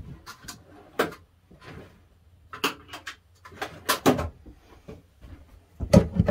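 Scattered knocks and clinks of tools and metal parts being handled on a workbench, a few irregular sharp strikes with pauses between them, the loudest cluster about six seconds in as a screwdriver is brought to the andiron's leg screw.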